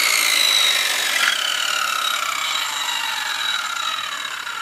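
Makita circular saw running free with no cut, its motor whine falling steadily in pitch and fading as it spins down after the trigger is released. The saw is being run to check that the refitted blade turns true without wobbling.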